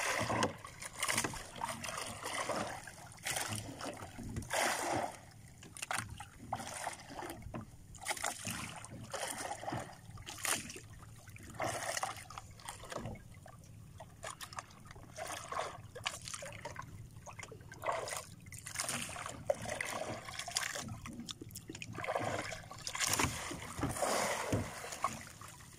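Sea water lapping and splashing against the hull and outrigger of a small boat, in irregular slaps about one or two a second.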